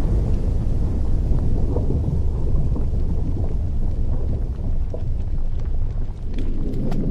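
Erupting volcanic vent: a continuous deep rumbling roar, broken by scattered sharp crackles and pops that come more often near the end.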